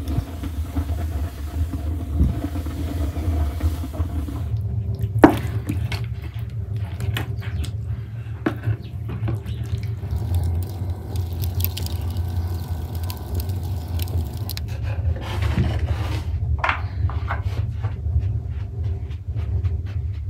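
A steady low rumble under scattered clicks and knocks, with one sharp knock about five seconds in; among them the handling of raw marinated whole chickens on a wooden board.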